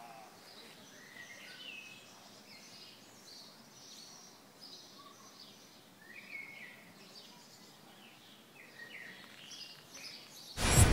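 Small birds chirping and twittering at intervals over faint outdoor background noise. Near the end, a short loud rush of noise lasting about a second drowns everything out.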